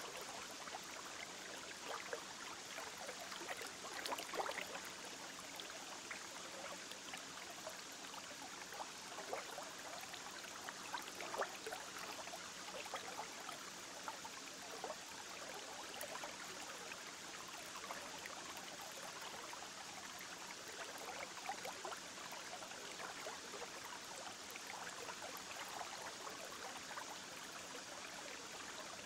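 Steady bubbling and trickling of aquarium water, with small irregular pops throughout.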